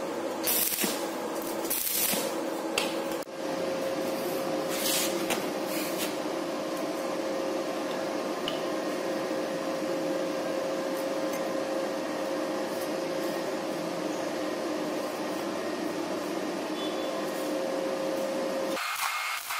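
Stick-welding arc crackling briefly in the first few seconds, then a steady hiss with a constant hum that runs until near the end.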